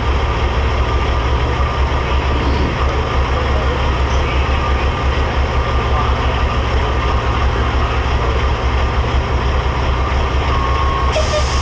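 Big diesel engine of a pro street pulling semi truck idling through its straight stack: a steady, deep rumble. A short hiss comes in near the end.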